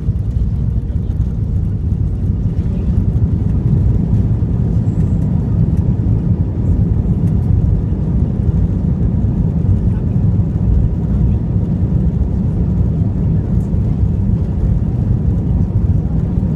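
Steady low rumble inside the cabin of an Airbus A320 rolling out on the runway after landing with its ground spoilers deployed: engine noise and the rumble of the wheels on the runway.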